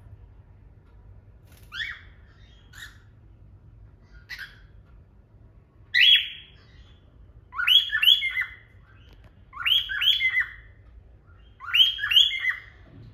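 Cockatiels calling: a few faint short chirps, then from about halfway in louder calls about every two seconds, each two or three quick falling notes.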